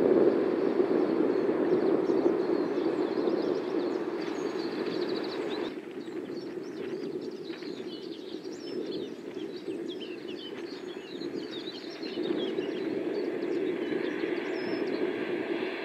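Jet engines of a landing Boeing 777 airliner, a steady rush that fades and then cuts off about six seconds in. Birds then chirp over a faint background, until the rush of a Boeing 747-8 freighter's four engines on approach grows again near the end.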